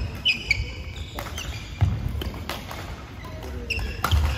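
Badminton play: court shoes squeaking briefly on the court floor, with several sharp hits and knocks of rackets on the shuttlecock.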